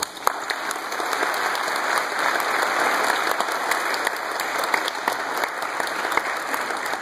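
Audience applauding: a dense patter of clapping that starts suddenly as a piece of music ends and holds steady.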